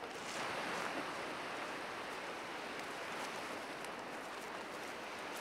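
Steady wash of ocean surf, swelling slightly about half a second in.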